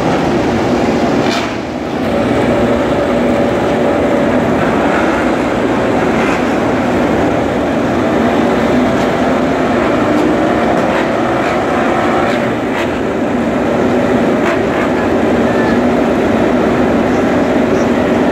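MotoGP racing motorcycles running: a loud, continuous din with faint engine notes rising and falling.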